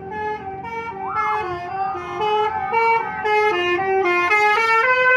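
Bus 'telolet' horn, a Basuri multi-tone musical air horn, playing a quick melody of short notes that step up and down, then holding one long note near the end.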